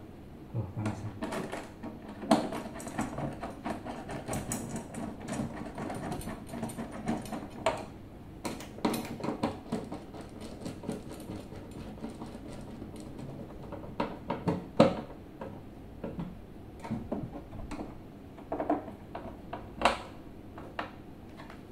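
Metal TV wall-mount bracket being screwed onto the plastic back panel of a TV with a hand screwdriver: irregular clicking, scraping and rattling of screws and metal, with a few sharper knocks.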